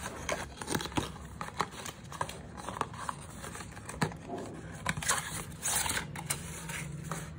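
Cardboard packaging being handled: rustling and scraping with scattered sharp clicks as the box is slid apart and lifted away.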